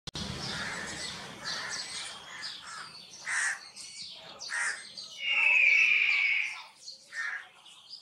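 Black kites calling overhead: many short, high calls, and about five seconds in one long, loud whistling call held for around a second and a half.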